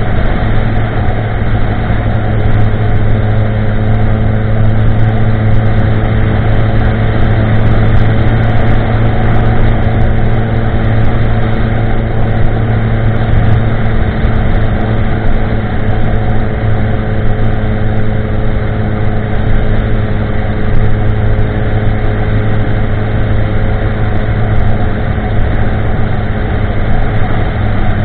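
2016 Kawasaki ZX10R's inline-four engine cruising at a steady engine speed through a de-catted Pro Race GP-R2 carbon-fibre exhaust, an even drone with no revving.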